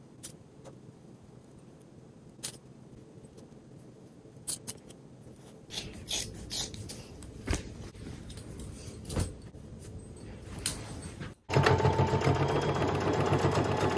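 Scattered light clicks and taps of fabric and tools being handled. About eleven seconds in, a domestic sewing machine, a Singer Fashion Mate, starts running steadily at speed, its needle stitching in a fast, even chatter over a low motor hum.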